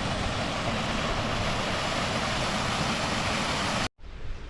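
A small waterfall rushing steadily into a pool, with wind buffeting the microphone. The rush cuts off abruptly near the end, leaving a much quieter outdoor hiss.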